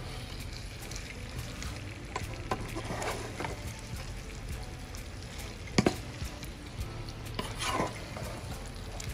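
Wooden spatula stirring shrimp in garlic butter sauce in a nonstick frying pan, with the sauce sizzling softly underneath. There are scattered scrapes and clicks, and one sharp knock a little past the middle.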